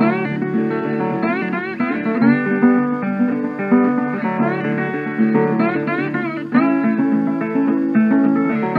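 Background music: a guitar playing plucked notes, many of them sliding up in pitch as they start.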